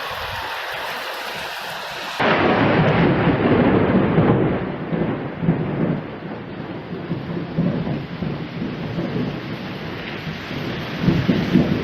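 Rain hissing steadily. About two seconds in, thunder breaks in suddenly and rolls in long rumbling waves over the rain, swelling again near the end.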